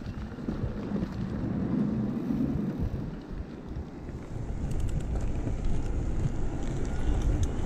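Wind buffeting the microphone of a camera riding on a moving mountain bike, over the rumble of the tyres rolling along the track and path. Light clicks and rattles come in about halfway through.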